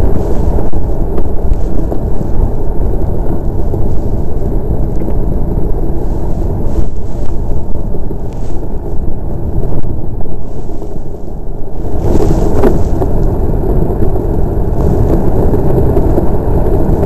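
DN iceboat's steel runners rumbling over smooth black ice at speed, a loud, steady low rumble mixed with wind on the microphone. One sharp tick about three-quarters of the way through.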